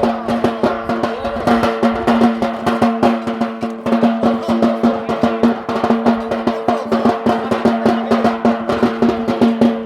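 Rapid, dense drumming accompanying a Yemeni bara' dance, over a steady droning tone.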